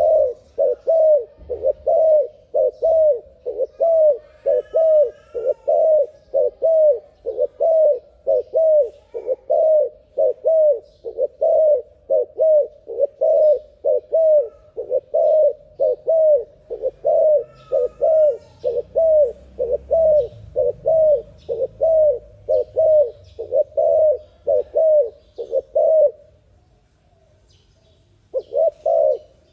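Spotted dove (terkukur) cooing in a fast, unbroken series of short coos, about two a second, sped up faster than natural. The cooing breaks off about 26 s in and starts again near the end, with faint chirps of small birds in the background.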